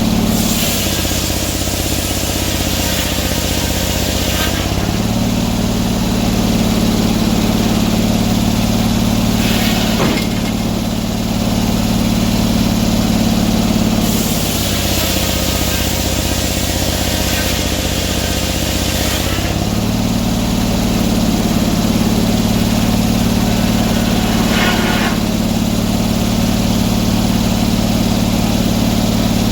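Portable sawmill's engine running steadily. Twice, for about five seconds each, its note drops lower while a loud hiss rises over it, and two brief hisses come in between.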